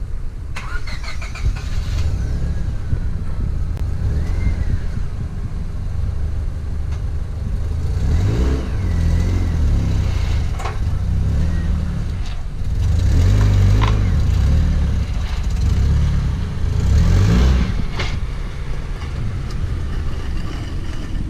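A car engine running, with a heavy low rumble that swells as it revs several times.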